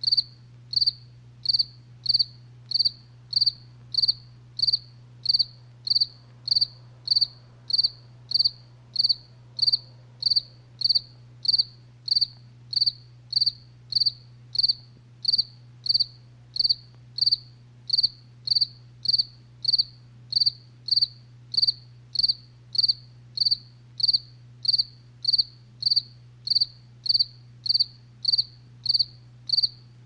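A cricket chirping steadily at night, short high-pitched chirps at an even rhythm of about two a second, over a faint low hum.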